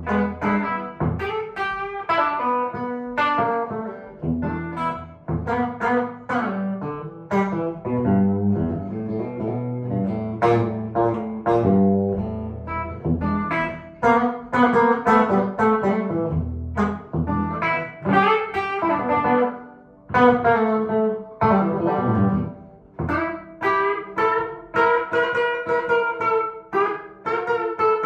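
A 1955 Gibson ES-295 hollowbody electric guitar with P-90 pickups being played: a continuous run of plucked single-note lines and chords. The tone is warm, with a thumpy twang.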